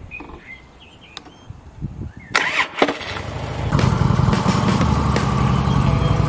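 Harley-Davidson motorcycle's V-twin being started: a few clicks, then the starter cranks just past two seconds in, and the engine catches and settles into a steady idle from about four seconds in.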